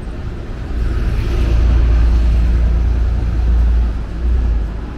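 A road vehicle passing close by on a city street: a low rumble with road noise that swells from about a second in and fades out near the end.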